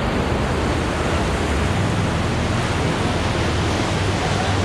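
Whitewater on the Middle Ocoee River rushing steadily through the rapids, a dense even wash of water noise with a heavy low rumble.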